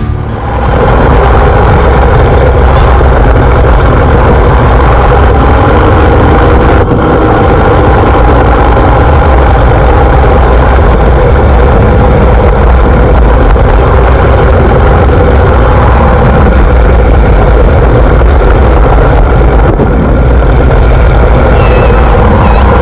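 Luge cart rolling fast down a concrete track: a loud, steady rumble of the wheels with wind buffeting the action camera's microphone.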